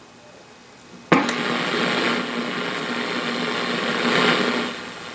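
A sharp click about a second in, then loud hissing static with a steady hum from the 1940 Philco 40-155 tube radio's speaker, dropping away near the end.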